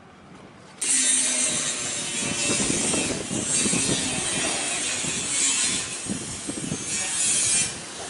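Loud, harsh rasping mechanical noise that starts abruptly about a second in and swells and dips unevenly.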